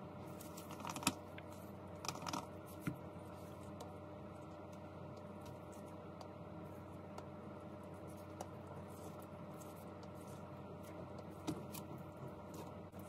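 Apple Pencil tip tapping and scratching on the iPad Pro's glass screen: a few light clicks, a cluster about a second in, more around two to three seconds in and one near the end, over a steady faint hum.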